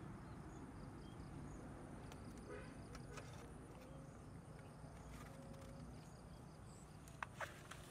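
Faint outdoor ambience with a steady low rumble, over which a woven bamboo trap and its plastic lid are handled: a few light ticks about three seconds in and two sharper clicks near the end.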